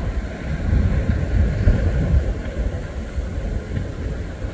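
Uneven low rumble of wind buffeting the microphone, rising and falling in gusts.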